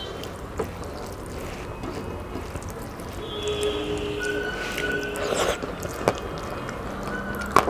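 Wet squishing of rice and dal being mixed by hand on a plate, with a few sharp clicks and the loudest one near the end.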